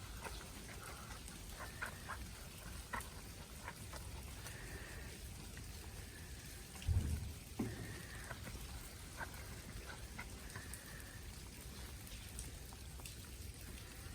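Wet snow and meltwater dripping and pattering, with many scattered sharp drips over a steady hiss. Two low thumps about seven seconds in are the loudest sounds.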